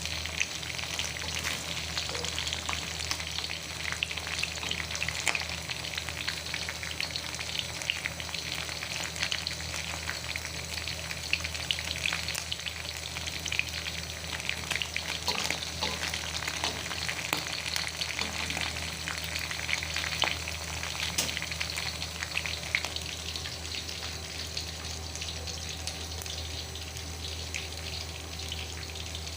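Food frying in hot oil in a pan, a continuous sizzle dotted with small crackling pops.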